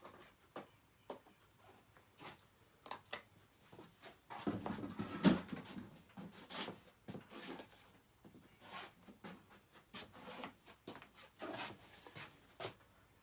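Scattered light clicks and knocks of hands handling an oil bottle and engine parts while oil is put into a rebuilt Kohler Courage engine, with a louder stretch of clatter and rustling about four to six seconds in.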